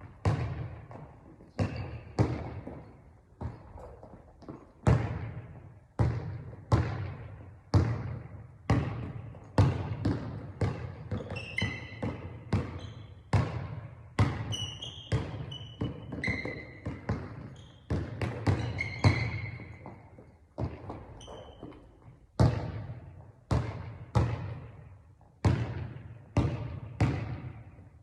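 Basketball being dribbled on a hard court, a steady run of bounces about one to two a second, each with a ringing low tail. A few short high squeaks come in the middle stretch.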